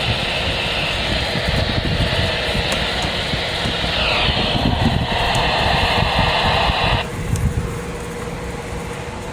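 Weather radio receiver putting out a steady hiss of static where the broadcast voice has dropped out mid-sentence, a sign that the station signal has failed. The hiss cuts off suddenly about seven seconds in, leaving a faint steady hum.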